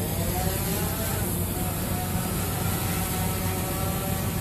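Small quadcopter drone's motors whining as it takes off, the whine rising in pitch as it climbs, over a steady low hum.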